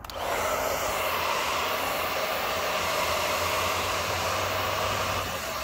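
Handheld hair dryer switched on and running steadily: an even rush of blown air with a steady hum in it. It is warming a motorcycle fuel tank's decal to soften the adhesive before peeling.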